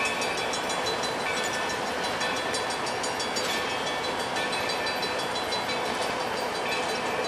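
Vintage passenger coaches rolling slowly along the track: a steady rumble and clatter of steel wheels on the rails, with faint high-pitched tones coming and going over it.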